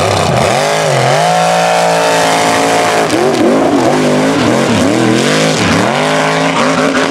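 Mega truck engine revving hard under full throttle. Its pitch dips and climbs about a second in and holds high for about two seconds, then swings up and down several times as the throttle is worked.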